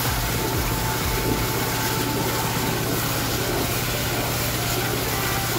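A steady engine drone under the rush and splash of a water jet washing mud and gravel down into a sluice.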